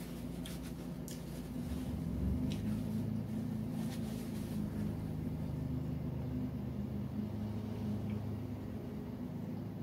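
Steady low mechanical hum, like an appliance or fan running, with a few faint rustles of a paper napkin being handled in the first seconds.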